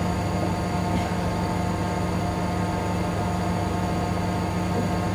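Steady hum and whir of a small motor or fan running, with a few fixed tones and no breaks or strokes.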